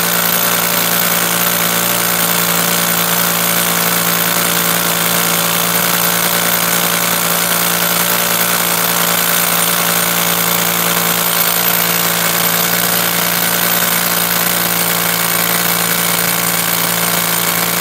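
National EZ6813 24-volt cordless concrete hammer drill running steadily under load, its bit drilling into a stone block.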